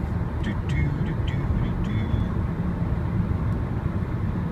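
Steady tyre and road noise inside the cabin of a Nissan Leaf electric car cruising at about 56 mph: a low, even rumble with no engine note.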